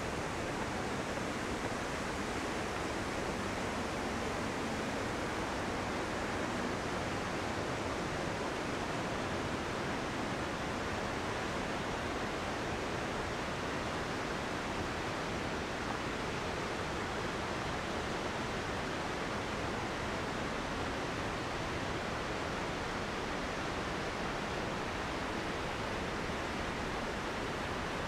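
Waterfall rushing steadily: an even roar of falling water with no breaks or changes.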